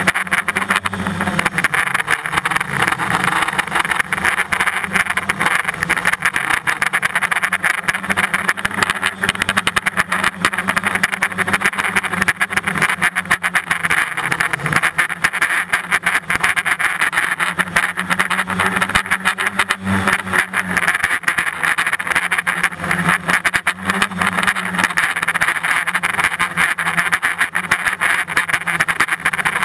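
A radio-controlled drone's electric motors and propellers running, heard from the camera on board: a steady, loud buzz, with the low hum swelling and fading as it manoeuvres and comes down low.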